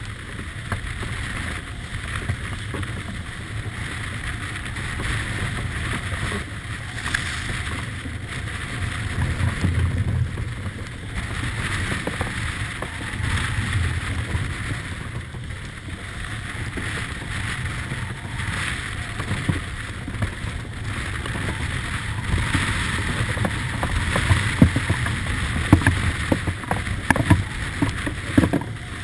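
Wind buffeting the microphone and water rushing along the hull of a sailing yacht beating through rough seas, a steady rush with a low rumble that swells and eases every few seconds. A few sharp taps near the end.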